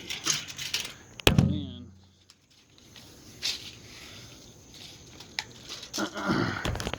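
Tape measure being handled: a sharp clack about a second in as the blade snaps back into its case, then light clicks and rustling.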